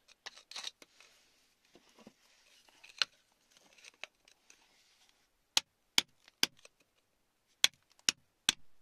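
A metal blade scraping at crumbly rock, then sharp tapping clicks: three taps less than half a second apart, a short pause, then three more.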